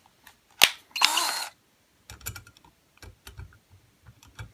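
A power drill gives a sharp click and then a brief spin of about half a second, its pitch rising as the motor starts, followed by scattered light clicks and taps as the bit is set onto a machine screw of a ceiling fan mounting bracket.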